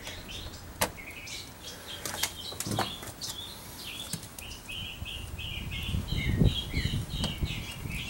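Sharp plastic and metal clicks, with some low bumping, from a car's interior door handle and its retaining clip being worked onto the lock rod. Birds chirp in the background, in a quick run of chirps over the last couple of seconds.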